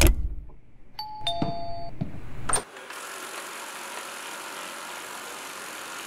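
A two-note electronic chime about a second in, the second note lower, followed by a sharp click and then a steady soft hiss.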